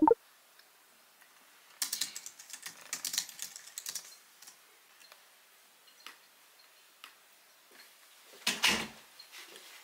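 Typing on a low-profile computer keyboard: a quick flurry of key clicks, then scattered single keystrokes, and a louder clatter of keys near the end. A brief pitched sound sits right at the start.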